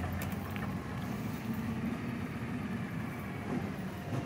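Peterbilt 320 McNeilus Meridian front-loader garbage truck's engine running steadily at low speed, a low, even drone.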